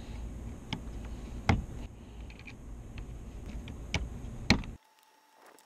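A few sharp clicks of hard plastic, about four, as the door-latch cable ends are worked into the interior door handle housing. They sit over a steady low rumble that cuts off abruptly near the end.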